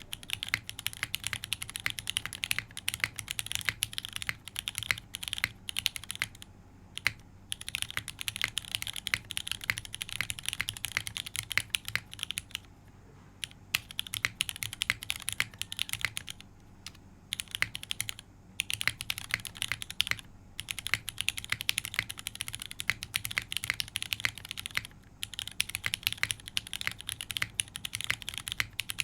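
Fast typing on a gasket-mounted custom mechanical keyboard: Cherry MX2A Black linear switches lubed with a 205g0/105 mix and fitted with PC films, on a carbon-fiber plate with GMK keycaps. Rapid keystroke clacks with a few brief pauses.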